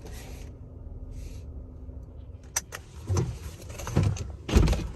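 Low steady rumble inside a car as it comes to rest, followed by a sharp click about halfway through and then three heavier thumps with rustling, the last near the end being the loudest.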